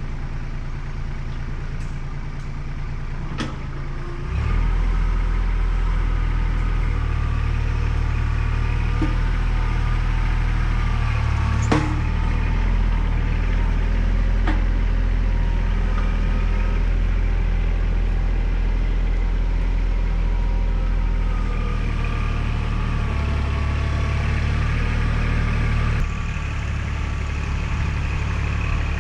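Kubota L3800 tractor's three-cylinder diesel engine running steadily. It picks up to a higher, louder setting about four seconds in, with a few sharp knocks along the way.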